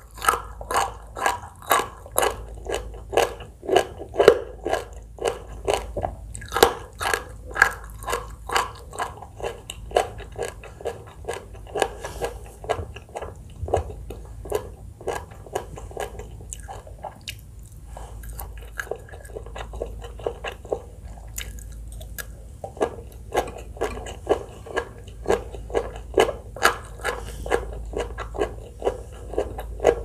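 Close-miked chewing and biting of Thai green papaya salad, noodles and sausage, in a steady rhythm of about two chews a second, easing off briefly about two-thirds of the way through.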